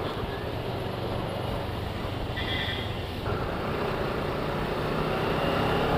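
Motorcycle engine running steadily while riding, a low hum under road and wind noise.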